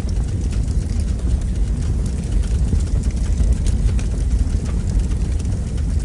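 Fire burning in a fireplace: a steady low rumble of flame with scattered small crackles.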